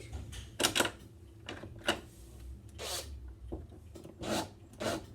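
A hand screwdriver turning screws in a door lock's fittings: about six short metal scrapes and rubs, spread a second or so apart.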